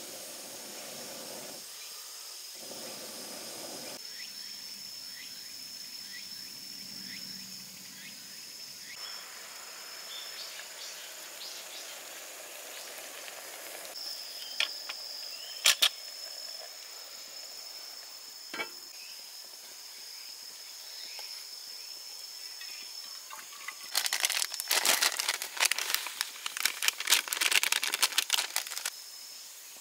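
Outdoor camp ambience with an insect's steady high-pitched trill that drops in and out. A few sharp clicks come midway, and near the end comes several seconds of dense, loud crackling clicks.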